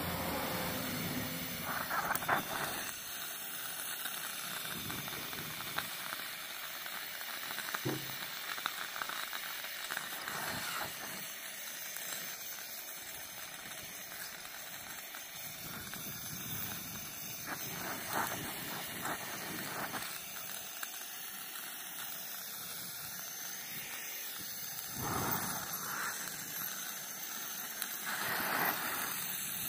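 Gas burner flame hissing steadily as it heats an aluminium can, with brief louder surges of the flame now and then.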